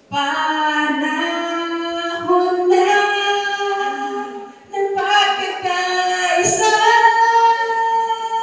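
A female voice singing a slow song in long held notes, with a brief pause about halfway through.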